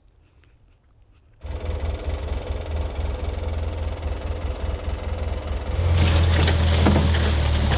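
Engine of an off-road utility vehicle running, heard from inside its cab; it comes in suddenly about a second and a half in and grows louder and harsher about six seconds in as the vehicle gets under way.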